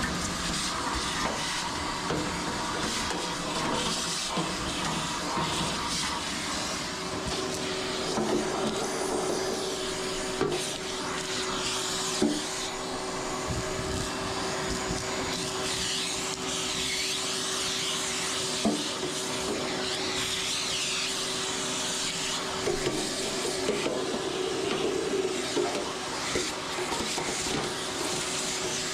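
Vacuum cleaner running steadily while sucking lint and debris out of the inside of a clothes dryer, with a few short knocks as debris is pulled into the hose.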